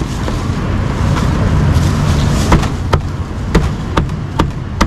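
Cleaver chopping through a grilled duck onto a chopping board: a run of sharp knocks in the second half, about two or three a second. A steady rumble of street traffic lies underneath and swells in the first half.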